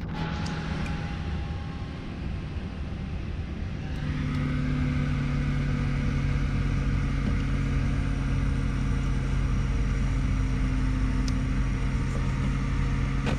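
A steady low mechanical hum that gets louder about four seconds in.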